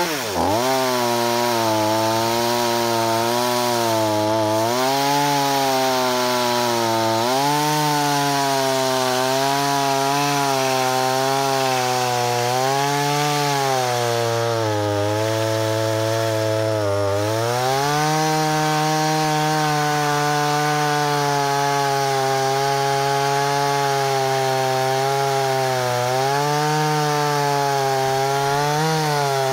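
Two-stroke pruning chainsaw engine running with its speed wavering up and down instead of settling, after a sharp dip and recovery right at the start. This is the unstable idle of a carburettor whose idle and low-speed screws have been tampered with and are being readjusted.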